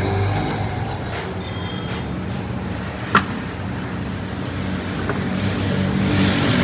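Steady low hum of a vehicle engine running, with one sharp click about three seconds in and a few fainter ticks as lug nuts are fitted by hand onto the wheel studs.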